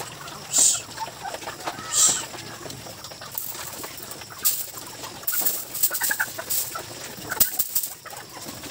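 Hens clucking while piglets eat feed shaken from a bucket onto a concrete floor, with short rattles early on and a run of quick clicking and crunching from the feeding in the middle.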